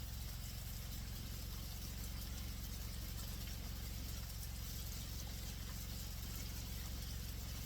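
Meat frying in a pan, a steady sizzle, over a constant low mechanical hum like a running engine.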